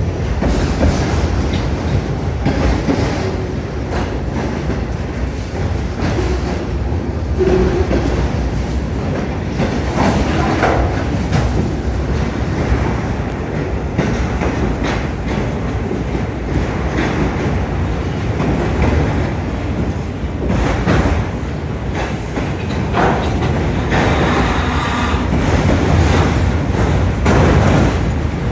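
Freight train of autorack cars rolling past, with steady rumbling and wheels clicking over rail joints. Short wheel squeals come now and then.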